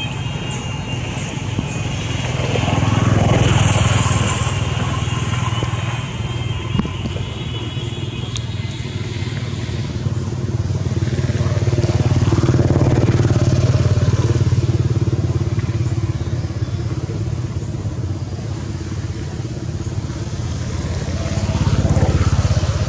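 Steady engine drone of passing motor vehicles, swelling three times: about three seconds in, around the middle and near the end.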